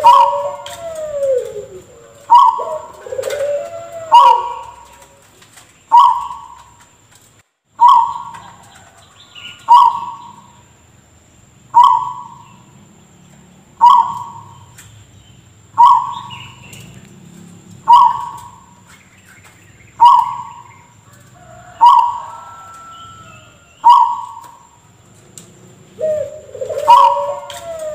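Zebra dove (perkutut) calling with short, abrupt cough-like notes, about one every two seconds, with lower gliding coo notes at the start and again near the end.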